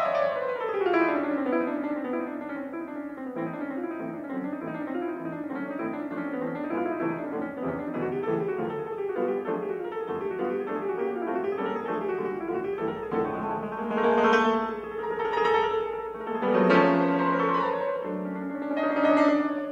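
Background piano music: a quick falling run of notes, then a fast, busy stream of notes, with a few louder, fuller notes in the second half.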